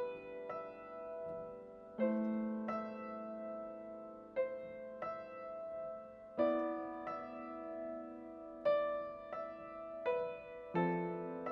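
Background piano music: slow, soft notes and chords struck in pairs about every two seconds, each left to ring and fade.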